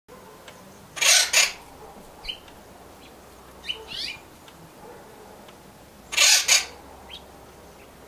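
Acorn woodpecker calling: a loud, harsh two-part call about a second in and again about six seconds in, with a few short, fainter calls in between.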